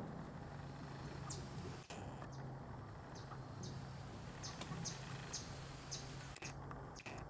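Outdoor ambience: a series of short, high-pitched chirps at irregular intervals over a steady low hum and background hiss.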